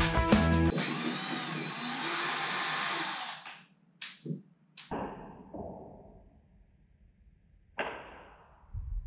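Cordless drill/driver running steadily for about three seconds as it drives a fastener into the ceiling rack's bracket, followed by a few sharp clicks and a couple of knocks from the steel rack parts.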